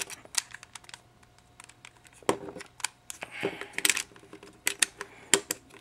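Irregular sharp plastic clicks and clacks of YJ axis cube pieces being handled and forced together as an edge piece is pushed back into the puzzle, a piece that is hard to push in.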